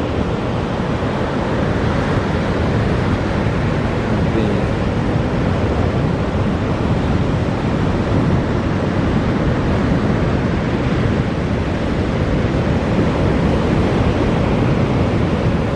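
Steady rush of surf breaking on the beach, with wind buffeting the microphone.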